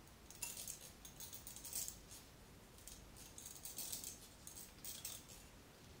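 Comb drawn through conditioned hair close to the microphone, detangling it: a run of soft, irregular scratchy strokes.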